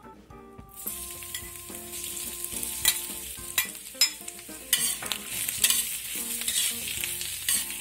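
Sliced garlic and shiitake mushrooms hitting hot oil in a wok, setting off a sudden sizzle a little under a second in that keeps going as they fry to bring out their aroma. A metal spatula stirs them, clacking and scraping against the wok several times.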